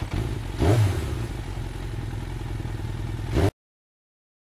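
An engine running at a low pitch, swelling louder about a second in, then holding steady before cutting off abruptly, laid under an animated intro.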